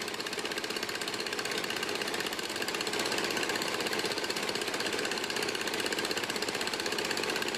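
Small stationary engine driving a water pump, running steadily with a fast, even chugging.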